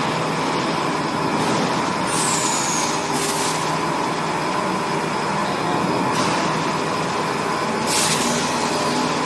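XH7145/VMC650 CNC vertical machining center running: a steady machine hum with a held tone, broken by several short hissing bursts. One burst, about two seconds in, carries a brief falling whistle.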